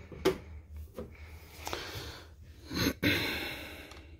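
Forged aluminium engine piston handled on a steel bench and set onto a digital scale: a few light clicks and knocks, then a sudden rushing noise about three seconds in that fades away.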